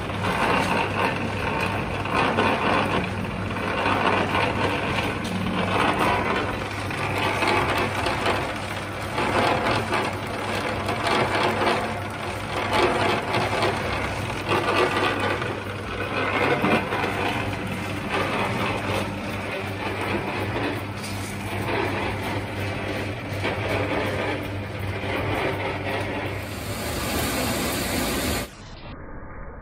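HPSM 6 ft centre lathe running under power: a steady electric-motor hum under loud clattering noise from the V-belt, cone pulleys and headstock gears. The sound drops suddenly to a quieter, duller level near the end.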